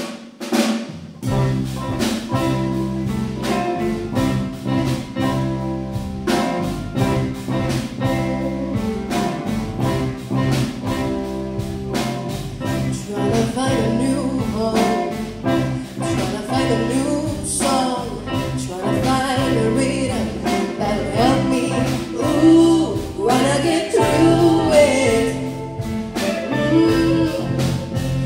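Christmas concert song with a steady beat and instrumental accompaniment, starting at once; a singing voice comes in about halfway through.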